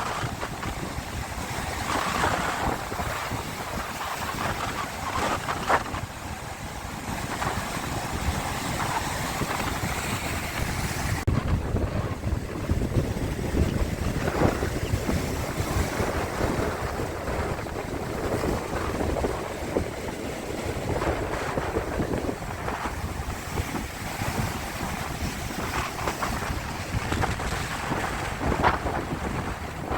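Sea water washing and splashing in irregular waves, with wind buffeting the microphone. The high hiss drops suddenly about eleven seconds in.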